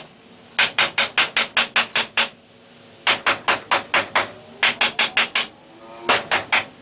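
Hammer driving nails overhead into a wooden brace on a roof rafter: four runs of quick, sharp blows, about five a second, with short pauses between the runs.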